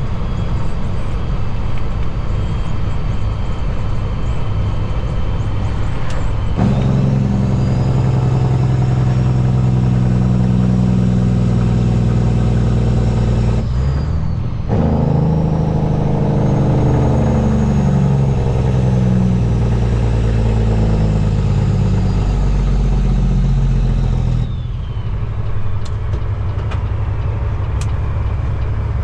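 Cat C15 diesel in a Peterbilt 389 semi truck pulling under throttle: the engine comes on harder a few seconds in, breaks off briefly for a gearshift about halfway, pulls again, then the throttle is let off near the end. A high whistle climbs and falls along with each pull.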